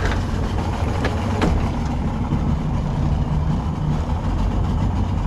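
Outboard motor of a small boat running steadily, with two light knocks about a second in.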